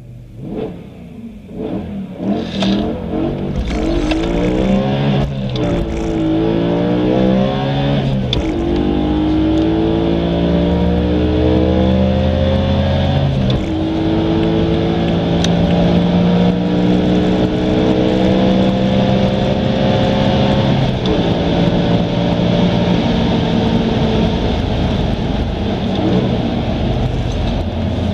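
Engine-swapped BMW accelerating at full throttle from a standstill, heard from inside the cabin. The engine note climbs in pitch through each gear and drops at each upshift, several times, and each gear runs longer than the last.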